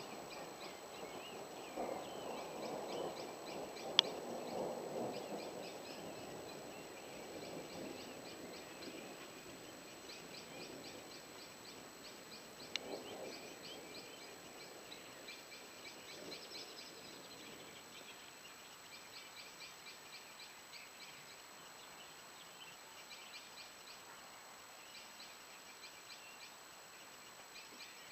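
Night insects chirping in fast repeated trains of high ticks, over a faint low rumble of distant thunder that fades during the first several seconds and swells briefly again near the middle. A single sharp click comes about four seconds in, and a smaller one near the middle.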